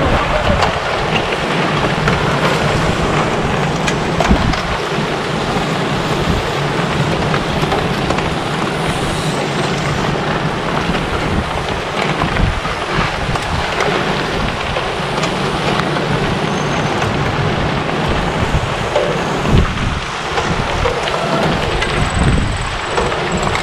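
Steady crunching hiss of many gravel-bike tyres rolling over a gravel road as a large pack of riders passes close by, with a few clicks and knocks.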